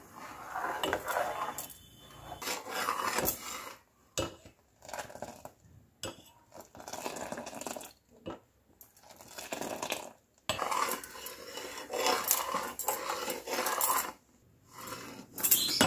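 Metal ladle scraping and stirring rice and milk in an aluminium pot, in irregular strokes with a few sharp clinks against the pot. The kheer is being stirred continuously so the rice does not stick to the bottom and no skin forms on top.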